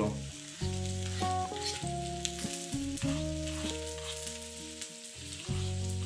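Background music of held notes and chords that change every second or so, over a faint, steady crackling sizzle from meat cooking on a small electric grill.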